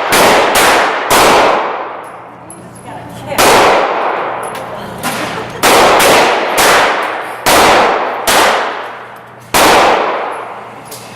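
A string of about ten pistol shots, unevenly spaced, some in quick pairs and some a second or two apart, each followed by a long echoing decay.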